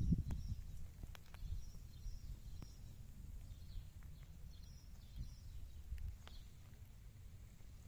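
Outdoor ambience: wind buffeting the microphone as a low, uneven rumble, with faint bird chirps scattered through it and a few soft clicks.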